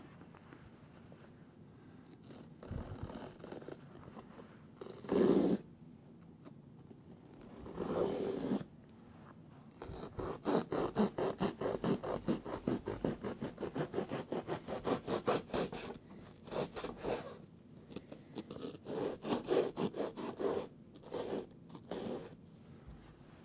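Kitchen knife sawing through a foam seat cushion in rapid back-and-forth strokes, in several bouts, the longest lasting about six seconds, with a few shorter scrapes and bumps in between.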